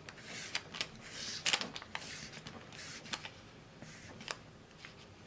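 A spatula smoothing thick chocolate cake batter in a paper-lined cake tin: short swishes with sharp little taps and clicks, the loudest about a second and a half in.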